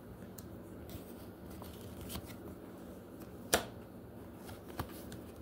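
Tarot cards being handled: a few sharp clicks and taps, the loudest about three and a half seconds in, over a faint low hum.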